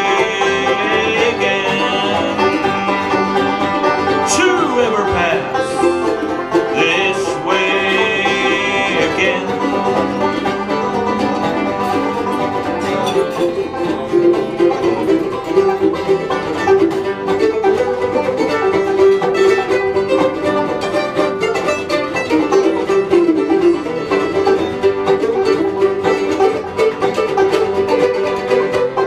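Live acoustic instrumental break: five-string banjo picking, acoustic guitar strumming chords and a fiddle playing the melody, with sliding high lines in the first ten seconds or so. No singing.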